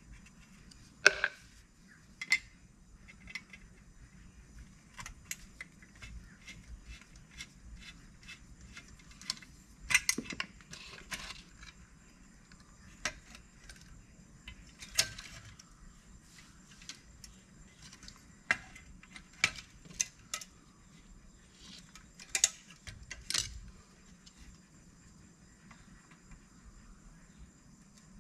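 Irregular small metallic clicks, taps and clinks of a screwdriver and loose metal parts being handled while the motor-mount screws are taken out of a Lionel Standard Gauge 318 locomotive, with a few louder clanks scattered through.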